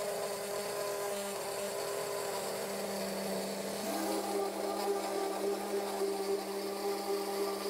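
Electric blender running steadily with a stainless-steel jar, blending egg, milk, butter and torn sweet potato leaves into a liquid. About four seconds in the hum shifts in pitch and a second tone joins it.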